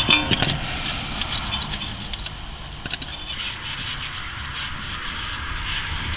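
A plastic scraper scraping old RTV sealant residue off the oil pan mating surface of a Honda 2.4 L engine block. It opens with a quick run of sharp clicks, then settles into a steady, rasping scrape.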